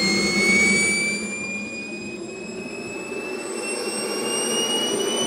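Small KingTech model jet turbine running, its high whine climbing steadily in pitch as it spools up, over a lower rushing noise.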